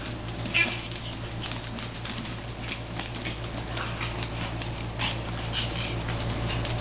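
Japanese Chin dogs wrestling on a tile floor: claws patter and scrabble on the tiles in many quick ticks, with a sharper scuff about half a second in. A steady low hum runs underneath.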